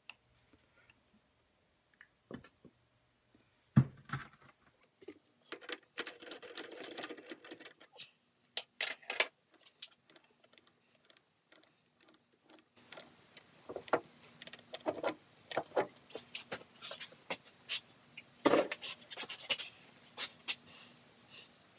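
A screw-on lathe chuck being broken loose and taken off the threaded spindle nose. There is a sharp knock about four seconds in, the chuck jaw struck against a wooden block to jar the chuck loose. Then comes a long run of light metallic clicks and clinks as the chuck is spun off the threads by hand.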